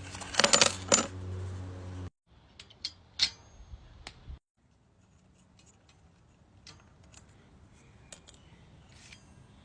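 Metal clicks, clinks and rattles of small parts and tools while an e-bike's disc brake pads are changed. A dense clatter comes in the first second or so over a low hum. The sound cuts off abruptly about 2 s in and again about 4 s in, and after that come sparser single ticks and clicks.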